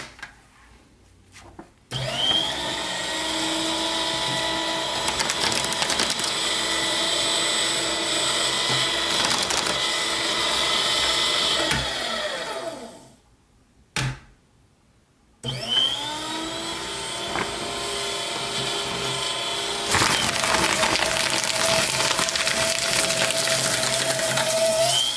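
AmazonBasics 12-sheet cross-cut paper shredder's motor starting with a rising whine and running as it shreds a five-sheet stack, then winding down with a falling pitch about ten seconds later. After a click it starts again and runs for nearly ten more seconds, its sound changing partway through before it cuts off near the end.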